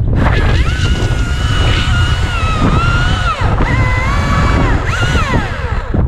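Husqvarna T540iXP battery top-handle chainsaw running up to a high whine and cutting into the sycamore trunk. Its pitch sags and recovers in the middle and falls away as the saw winds down near the end. Wind rumbles on the microphone throughout.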